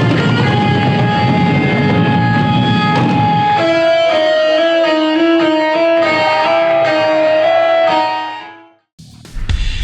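Electric guitar music: a full band sound for the first few seconds, then a lead guitar holding long, slightly bending notes, fading out near the end. A short gap follows, then a low rumbling noise.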